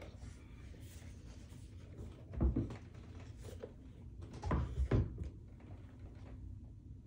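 Handling noise as a cycling shoe is lifted off a kitchen scale and set down: two short clusters of knocks and thumps, about two and a half and about four and a half seconds in.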